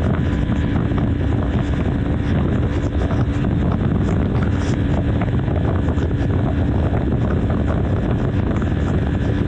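BMW G310 R's single-cylinder engine running steadily at highway cruising speed, with wind rushing over the microphone.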